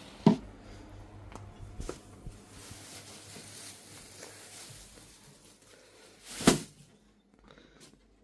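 Two loud thuds, one just after the start and one about six and a half seconds in, with a few lighter knocks and faint rustling between.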